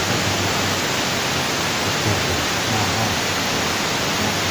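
Steady rushing water, an even hiss that holds at one level without breaks.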